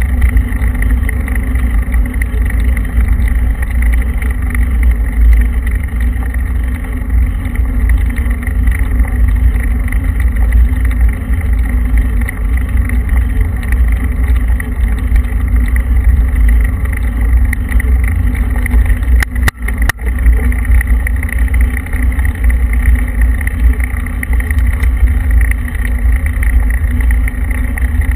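Steady, heavy wind and road rumble from a camera on a moving vehicle rolling over the rough, grid-covered asphalt base of an unfinished road. A couple of brief clicks come about two-thirds of the way through.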